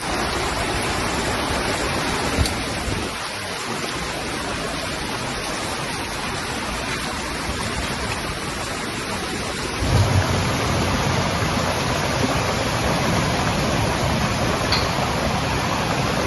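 Heavy rain pouring down in a steady hiss. About ten seconds in the sound shifts and a deeper rush comes in underneath.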